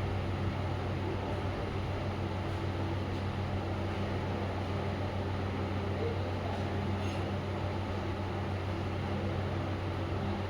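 A steady low hum at a constant pitch, unchanging throughout, over a faint even background noise.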